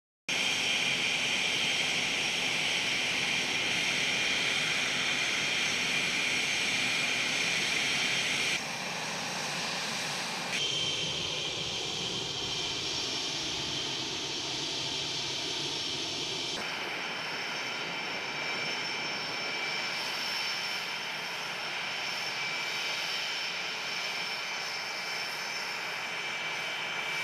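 Jet engines of F/A-18 Hornets running on the flight line: a steady rushing noise with high-pitched turbine whine. It comes in several clips joined by abrupt cuts, and in one of them a lower tone falls slowly.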